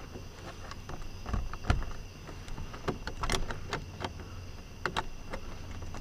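Scattered light clicks and taps from hands working on plastic interior trim and light fittings inside a car, spaced irregularly about a second apart, over a faint steady low hum.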